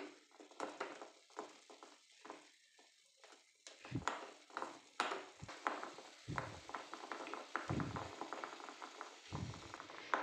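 A metal utensil stirring melting crayon wax in a small steel bowl set in a pan of hot water: irregular taps and scrapes of metal on steel, coming thicker from about four seconds in, with a few low thumps.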